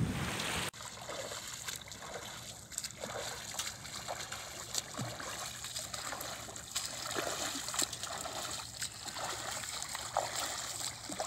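Wind buffeting the microphone for the first moment, then water splashing and trickling as a swimmer's arms and kicks stroke through calm sea, in small irregular splashes.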